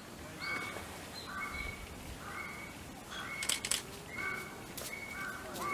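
A crow cawing over and over in a steady series of short, flat calls, with a couple of sharp clicks about halfway through.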